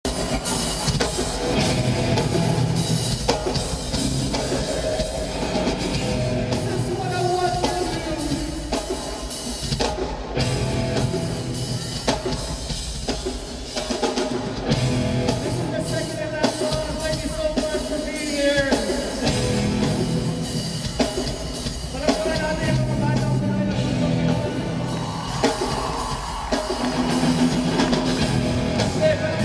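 Rock band playing live: electric guitars and drum kit with lead vocals sung into microphones, heard in a large arena.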